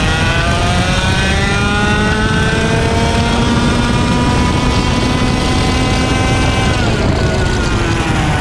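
IAME X30 125cc two-stroke kart engine heard onboard, climbing steadily through the revs for about seven seconds under full throttle, then dropping sharply as the throttle closes for a corner. Wind rush runs underneath.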